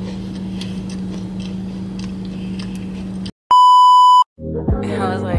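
A steady low hum with faint clicks stops suddenly about three seconds in, followed by a loud, steady test-card beep lasting under a second. Hip hop music with falling bass notes starts near the end.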